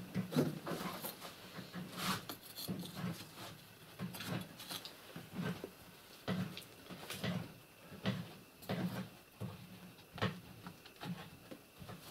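Irregular scraping and light knocks of brick and clay being handled by hand at an opening in a brick stove's flue wall.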